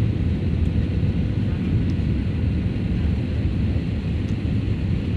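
Steady low rumble of an airliner's engines and rushing air, heard inside the passenger cabin during the descent to land.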